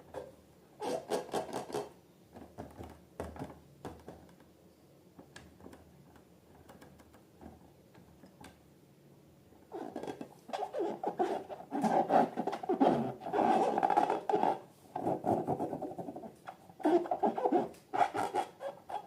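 Slime being handled: irregular bursts of squishing, crackling and rubbing, a short cluster about a second in and a longer, louder run through the second half.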